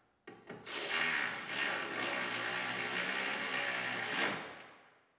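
A ratchet running steadily for about four seconds, after a brief start, as it tightens the bolts that clamp the door glass to the window regulator.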